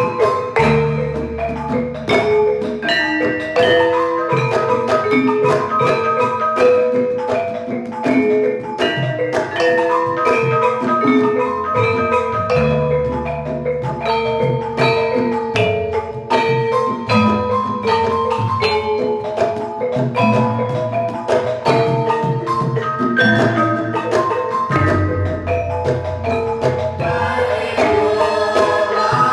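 Campursari gamelan ensemble playing an instrumental passage: a melody of struck metal keys over drums, at a steady pulse. The sound grows brighter and fuller near the end.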